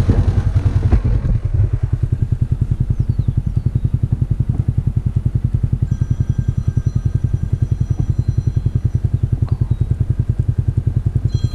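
Utility vehicle's engine idling close by: a steady, low, evenly pulsing throb.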